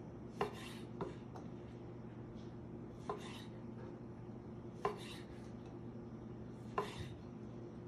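Chef's knife cutting cherry tomatoes into quarters and knocking on a wooden cutting board: five sharp cuts spaced a second or two apart, each with a short slicing hiss, over a steady low hum.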